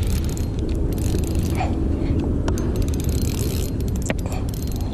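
Spinning reel being cranked to bring in a hooked, fighting bass, with the reel's gears and handle clicking and rattling in quick clusters. A steady low rumble of wind on the microphone lies underneath.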